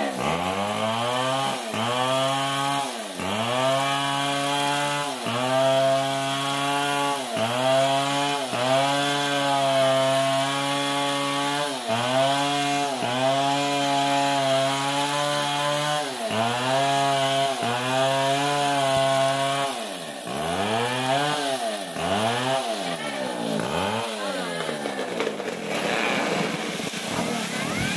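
Two-stroke chainsaw cutting into a palm trunk at high revs. Its engine note dips and recovers every second or two as the chain takes the load. Near the end the revs swing up and down more quickly, then it drops to a lower, softer running.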